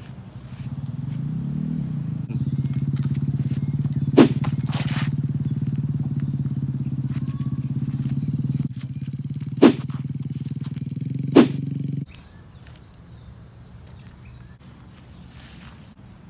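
A steady low hum with a fast pulse in it, broken by three sharp hits: one about four seconds in and two more close together later on. The hum cuts off abruptly about three-quarters of the way through, leaving faint outdoor background.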